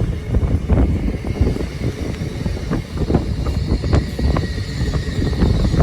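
Low, steady rumble of trains standing at the station platform with engines running, broken by irregular gusts of wind buffeting the microphone.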